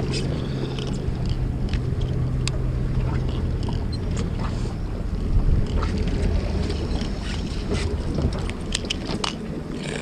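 Boat engine running with a steady low hum. Scattered sharp clicks from the rod and baitcasting reel being handled as the jig is dropped back in.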